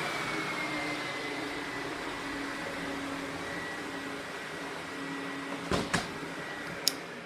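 Sebo Felix vacuum cleaner running, its thin motor whine dipping slightly in pitch at first and then holding steady as the sound slowly fades. Two clicks come about six seconds in and a sharper one near the end.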